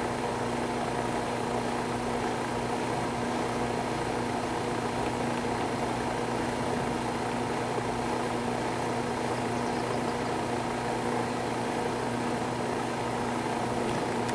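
A steady machine hum holding a few even tones, with no change in pitch or level.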